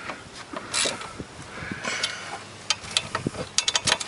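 Socket ratchet clicking in short runs while tightening brake caliper bracket bolts, with a quick run of clicks near the end.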